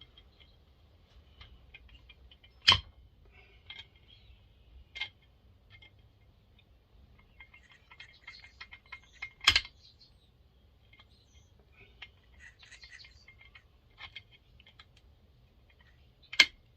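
Hand tools and small metal chainsaw parts being handled: light scattered clinks and ticks, with three sharp knocks roughly seven seconds apart.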